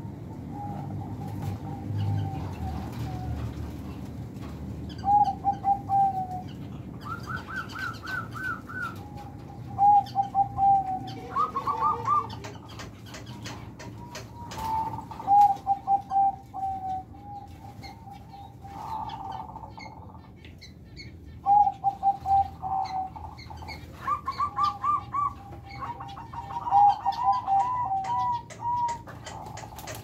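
Zebra doves (perkutut) cooing in an aviary: repeated runs of four to eight short, quick notes, one run every few seconds, several birds overlapping near the end, with faint chirps of smaller finches and canaries.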